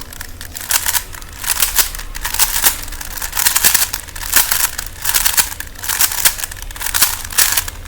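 Plastic Rubik's Cube layers being turned quickly by hand, a rapid, irregular clicking and rattling in clusters several times a second.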